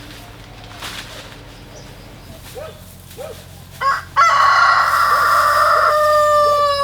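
A rooster crowing: a short opening note, then one long held call that falls slightly in pitch as it ends. A few short, soft calls come just before it and between.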